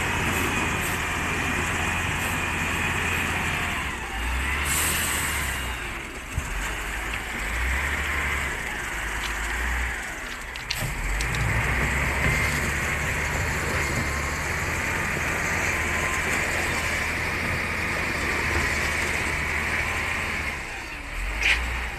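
Heavy dump truck's diesel engine running steadily as the loaded truck crosses shallow river water, its low hum shifting in level now and then. A brief hiss sounds about five seconds in.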